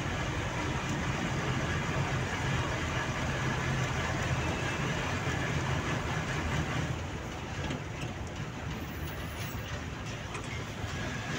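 Truck engine running and road noise, heard from inside the cab while driving at speed. A steady low drone; about seven seconds in it drops and gets somewhat quieter.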